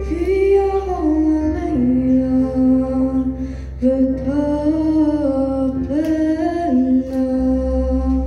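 Young woman singing a song solo into a handheld microphone over instrumental accompaniment, in long held notes that slide between pitches, with short breaks between phrases.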